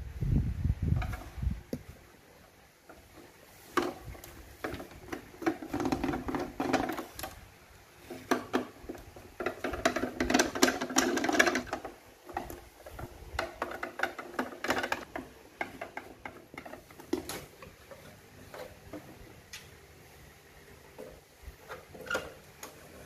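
A hand screwdriver turning screws out of the plastic back of a Sony CFS-1133S boombox, with two longer stretches of dense scraping about a quarter and half way through, among clicks and knocks of the plastic cabinet being handled and opened. A low thump comes right at the start.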